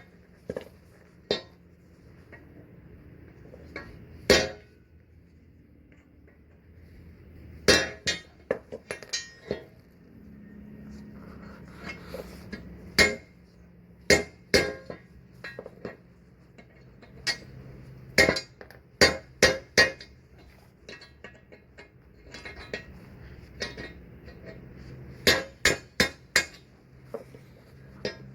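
Sharp, ringing metal-on-metal hammer strikes at irregular intervals, often several in quick succession and then a pause: steel being hammered to drive an old bushing out of a leaf spring eye.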